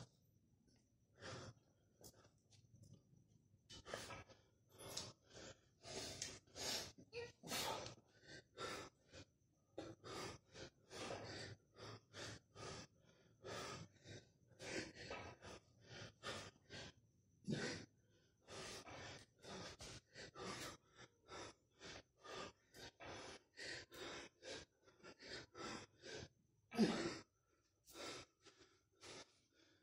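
Hard, rhythmic breathing of a man swinging a heavy mace (gada) in exercise: short huffs, sparse at first, then about two a second.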